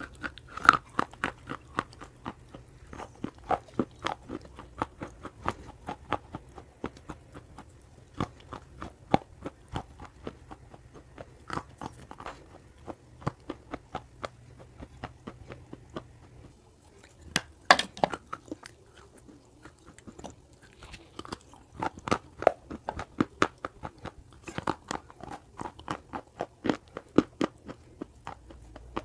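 Close-miked crunching and chewing of baked clay pot pieces coated with multani mitti (Fuller's earth): a long run of sharp, crisp crunches. There is a short pause about sixteen seconds in, then one loud bite and a denser stretch of crunching near the end.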